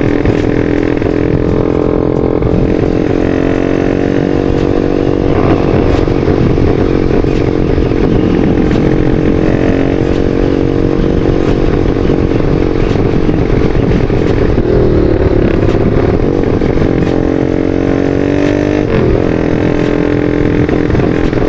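Bored- and stroked-up Yamaha Vixion's single-cylinder four-stroke engine and exhaust running under way, mostly at steady revs. Its pitch dips and shifts briefly about five seconds in, around fifteen seconds in and again near nineteen seconds in.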